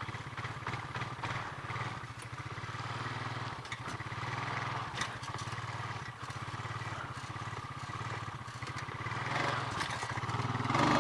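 Honda ATV engine running steadily at low revs, then getting louder near the end as it is throttled up for a wheelie.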